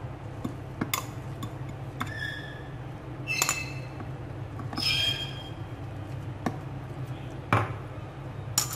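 Steel spoon clinking and scraping against a glass bowl and a plastic food-processor bowl as soaked bread is scooped across, about six sharp clinks, a few with a short glassy ring. A steady low hum runs underneath.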